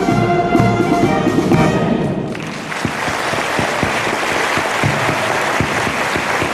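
A wind band of clarinets, saxophones and brass plays the last notes of a piece, which ends about two seconds in. An audience then breaks into steady applause.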